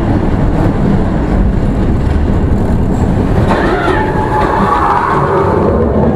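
Expedition Everest roller coaster train running along its track: a loud, steady rumble, with a higher wavering sound over it for about two seconds past the middle.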